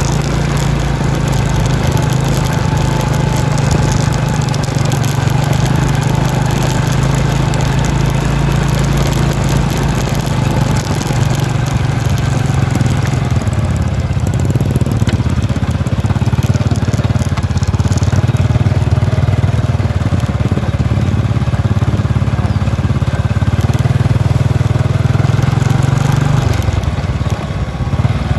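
Small motorcycle engine running steadily while riding a dirt rice-field path, as used by the ojek sawah that haul harvested rice. Its hum drops away near the end.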